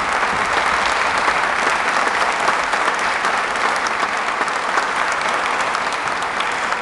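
Audience applauding, a steady round of many hands clapping that eases slightly near the end.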